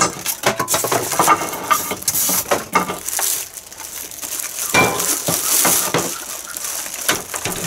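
Clear plastic bag rustling and crinkling as it is pulled off a sandwich maker, with irregular knocks and clatter as the machine and its packing are handled.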